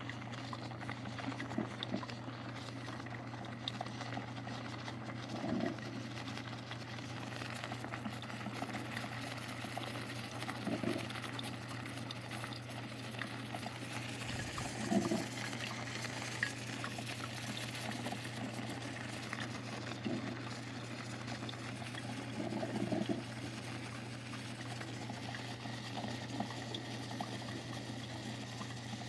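A broken, leaking coffee machine bubbling and gurgling as it heats water, over a steady low hum.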